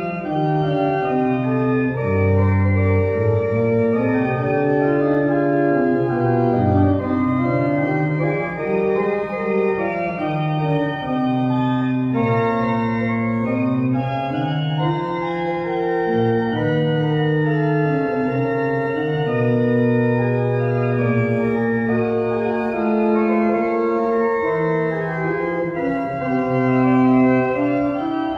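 Church pipe organ playing a polyphonic piece, several voices of held notes over a moving bass line.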